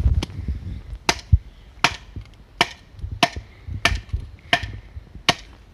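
Firewood being chopped: about eight sharp strikes of a blade into a log, roughly one every 0.7 seconds. The log is hard with an awkward grain and will not split cleanly, a piece the camper calls a real dud.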